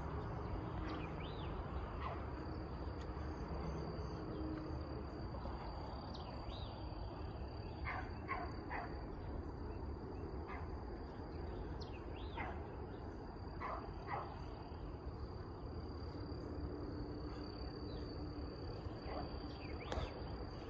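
A young beagle baying and chopping in the distance, in short scattered calls with a quick run of three about eight seconds in, as she runs a rabbit's track. A steady high insect drone runs underneath.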